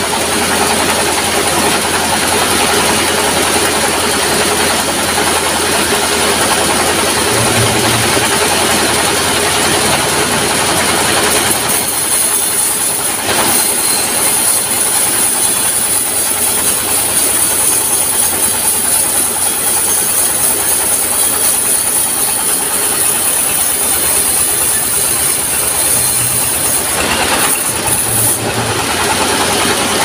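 A diesel-driven sawmill band saw running and ripping a long wood beam, a loud steady mechanical din. About twelve seconds in the sound turns thinner and hissier, easing back near the end.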